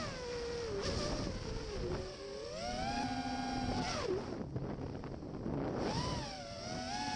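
Quadcopter drone's electric motors and propellers whining, the pitch rising and falling as the throttle changes, over a low rumble of wind on the onboard microphone.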